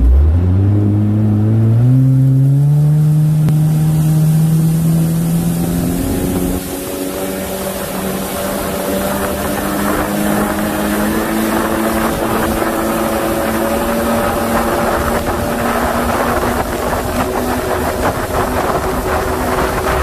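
Personal watercraft engine accelerating hard from low speed: its pitch climbs quickly over the first two seconds, then holds and rises slowly as speed builds. A rushing wind-and-water noise grows louder as the craft picks up speed.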